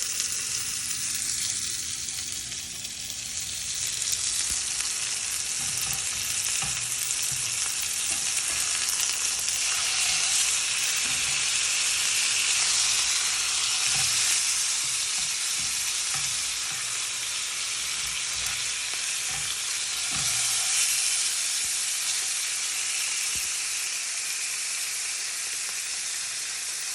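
Chicken frying and sizzling steadily in a pan, with occasional soft knocks of a utensil as it is stirred and turned.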